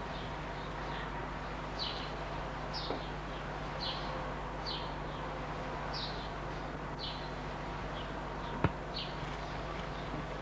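Short, high, falling chirps repeat about once a second over a steady electrical hum and hiss. One sharp click comes near the end.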